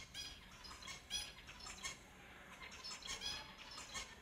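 Finches calling: a run of short chirps, several a second, with a brief lull about halfway through.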